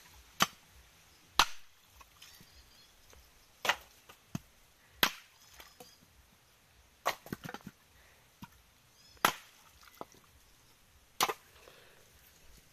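Machete blade striking dehusked coconuts, cracking the shells in half for copra. There are about nine sharp chops at irregular spacing, with a quick cluster of several strikes just past the middle.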